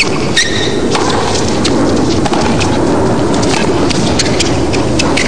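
Tennis stadium crowd applauding: scattered hand claps over a steady crowd hubbub, starting about a second in.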